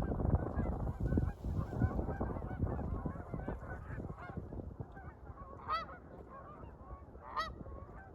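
A large flock of Canada geese honking: a dense chorus of overlapping calls that thins out after about four seconds, with two louder single honks standing out near the end.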